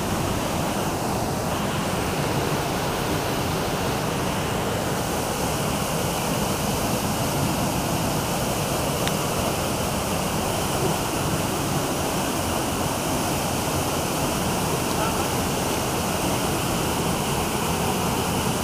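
Steady rush of water from a small waterfall pouring into a rock pool, with the flow of a shallow river over stones.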